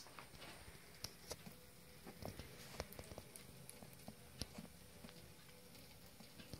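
Near silence with faint, scattered small clicks and light taps, a few a second at irregular intervals.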